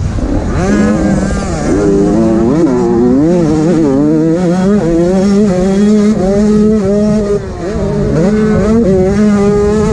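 85cc two-stroke motocross bike engine revving hard under race throttle, its pitch repeatedly rising and falling as the rider goes on and off the gas. Heard up close from a helmet-mounted camera, with rough rumble and wind underneath.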